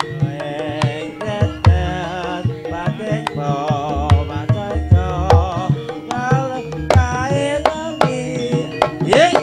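Javanese jaranan music: hand drums (kendang) beat a fast, busy pattern under steady held tones, with a high melody that wavers in pitch running over the top. A quick upward-sliding note stands out near the end.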